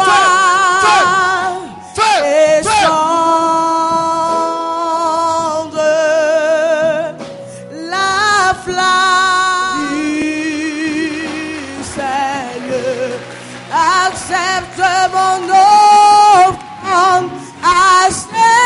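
Worship singing with music, in long held notes with a wavering vibrato and short breaks between phrases.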